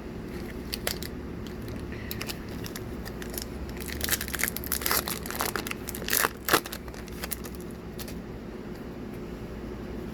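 Crinkling and tearing of a Magic: The Gathering booster pack's plastic wrapper, densest and loudest for a couple of seconds about four seconds in, with light clicks of cards being handled before and after.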